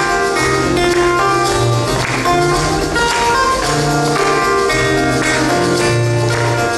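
Live instrumental music from a Korean traditional-fusion ensemble: a melody of held notes over a bass line that steps from note to note, with light percussive strokes underneath.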